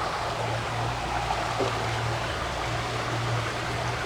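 Small mountain creek water rushing steadily, with a low steady hum underneath.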